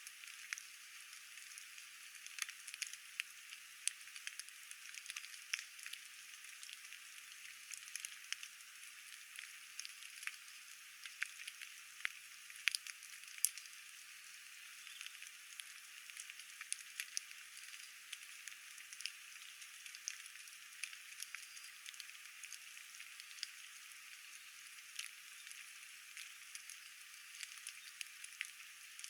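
Steady rain falling, a thin hiss with no low end, with many irregular close raindrop ticks and drips scattered through it, a few louder ones about twelve to thirteen seconds in.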